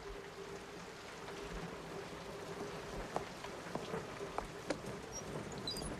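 Steady rain falling outside, with a few sharp soft knocks scattered through the middle.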